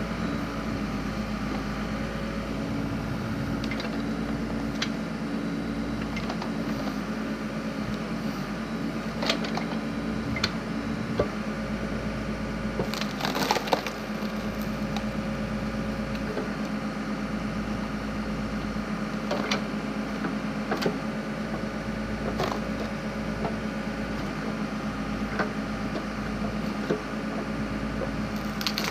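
Backhoe engine running steadily while the backhoe-mounted log splitter splits firewood, with sharp wood cracks and splintering several times; the loudest burst of cracking comes about 13 to 14 seconds in.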